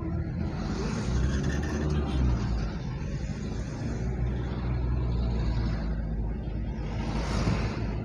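Car driving in slow city traffic: a steady low engine and road rumble, with other vehicles and motorcycles around it. A louder hiss of passing traffic swells about a second in and again near the end.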